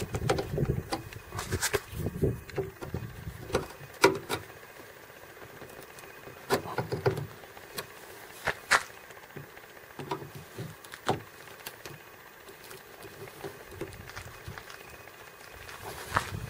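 Scattered sharp clicks and light knocks several seconds apart, with a low rumble of handling in the first few seconds, as the outer window belt molding of a Honda CR-V door is pushed and worked loose by hand.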